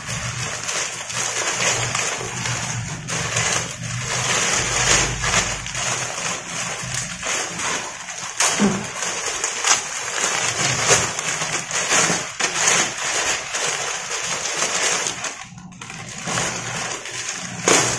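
Black plastic courier mailer bag rustling and crinkling in the hands as it is pulled open, a dense run of crackles with a brief lull near the end.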